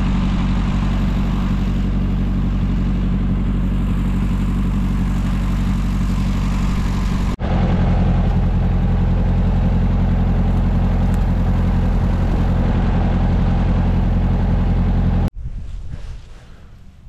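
Ford 8N tractor's four-cylinder flathead engine running steadily at close range. It breaks off suddenly once about halfway through and comes straight back louder, then cuts out near the end, leaving only faint low rumble.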